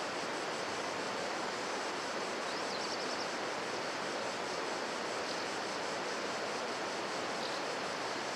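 Steady rushing of a small mountain river, an even wash of water noise.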